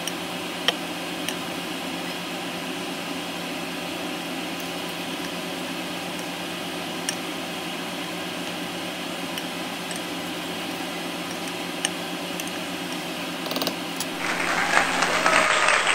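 Steady kitchen hum with a few light knocks of a wooden spatula against a stainless steel pan while a seafood boil is stirred; about two seconds before the end a louder hiss comes in.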